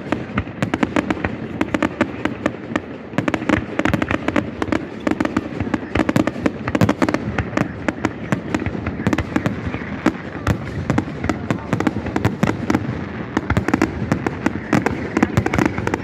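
Fireworks display going off without a break: a dense, continuous run of bangs and crackles, many per second.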